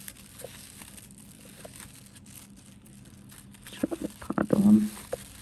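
Paper yarn crinkling and rustling as it is worked with a crochet hook, faint at first, with a short spell of louder rustling and clicks about four seconds in.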